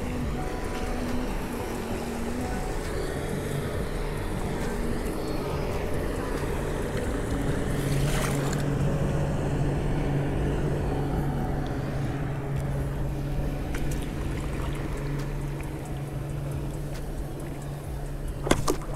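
Engine of a passing motorboat running steadily, growing a little louder towards the middle and easing off near the end.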